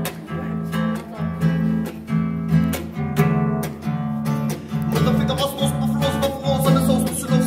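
Classical guitar being strummed, chords played in a steady rhythm.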